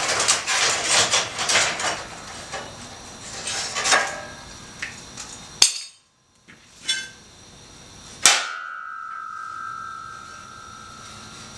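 Metal clamps being loosened and taken off a homemade angle-iron sheet metal brake: a clatter of metal knocks for the first couple of seconds, more clanks around four and seven seconds, then a sharp metal clang a little past eight seconds that rings on as one steady tone for about three seconds.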